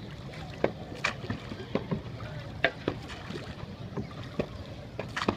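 Wet laundry being slapped against stone washing slabs, heard as sharp, irregular cracks about once or twice a second over a steady low rumble.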